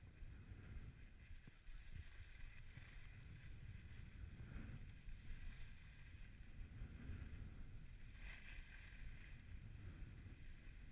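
Faint low wind rumble on the microphone, with the hiss of skis sliding over packed snow that swells twice.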